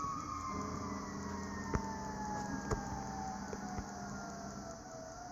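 Federal Q2B mechanical fire-truck siren winding slowly down in pitch, then beginning to rise again near the end.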